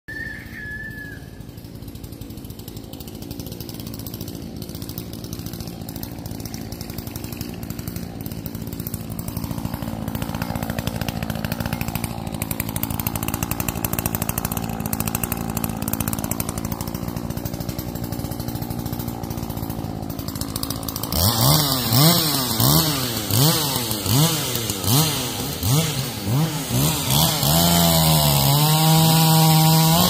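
Chainsaw running at a steady idle and slowly growing louder. About two-thirds of the way in it is revved again and again, its pitch rising and falling about once a second, then held at high speed near the end.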